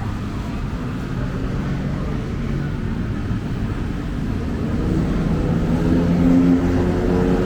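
City street traffic: a steady rumble of vehicle engines that swells louder in the second half as a nearer engine comes up.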